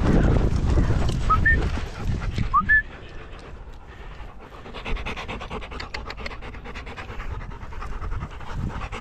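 A pack of dogs panting hard close to the microphone after running in, the fast breaths coming clearly once the noise drops about three seconds in. Before that, wind rushes on the microphone, with two short, high, rising squeaks.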